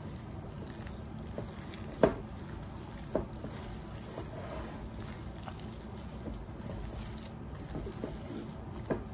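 Hands kneading and squishing raw ground-beef meatloaf mixture in a bowl: soft wet squelching, with two sharp clicks about two and three seconds in.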